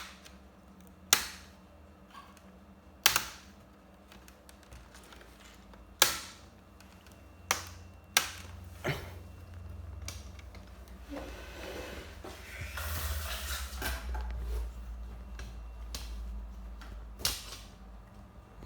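Plastic clips of an Asus ROG Strix G laptop's screen bezel snapping loose one by one as the bezel is pried off: about seven sharp, irregularly spaced clicks, with a stretch of softer plastic rustling and scraping around the middle.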